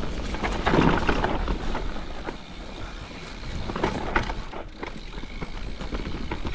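Mountain bike rolling fast down a dirt and root forest trail: a steady rumble of knobbly tyres on the ground, with the bike knocking and rattling over roots and bumps.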